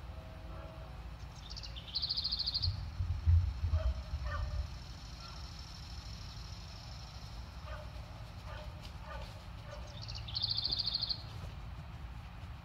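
Outdoor garden ambience: a short, high, rapid trill sounds twice, about eight seconds apart, over faint scattered chirps. Low rumbling and a few bumps run from about two to five seconds in.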